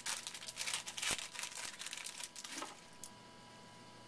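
A baseball card pack wrapper being torn open and crinkled by hand, a dense crackling for about two and a half seconds that then stops, leaving only a few faint ticks.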